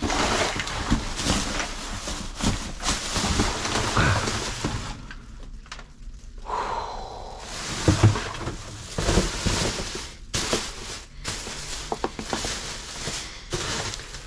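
Handling and movement noise: rustling and footsteps with several knocks, the loudest about eight seconds in, and a short lull a little before it.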